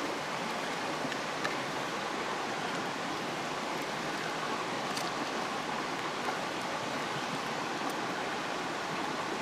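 Pot of pasta water boiling over a campfire: a steady bubbling hiss, with a few faint crackles from the fire.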